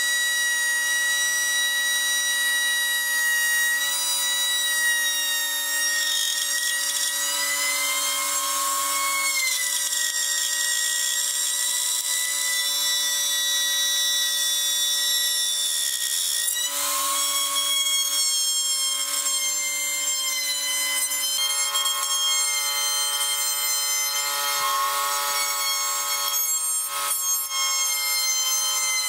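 Handheld electric plunge router running continuously as it cuts around the edge of a round wooden tabletop. A steady high whine that wavers in pitch a few times, shifting most clearly about two-thirds of the way through.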